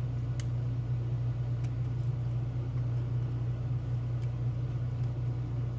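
A steady low hum throughout, with a few faint sharp clicks from lock picks working the pins of a Mul-T-Lock Classic cylinder, shortly before it opens.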